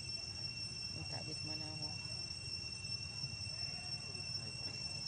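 Forest insects making a steady, high-pitched drone on two tones. About one and a half seconds in, a brief faint pitched call sounds over it.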